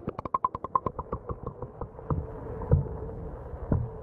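Underwater sound of a dog swimming in a pool. A quick run of clicks slows and fades over the first second and a half, then comes a few dull low thumps from its paddling legs, over a faint steady hum.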